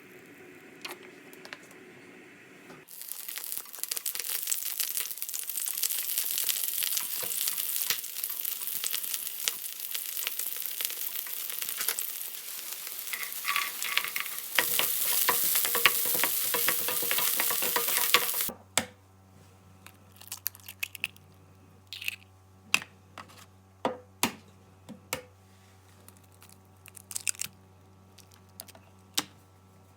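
Food sizzling and crackling in a hot pan for about fifteen seconds. A little past halfway it cuts off abruptly to a low steady hum with scattered light clicks and taps.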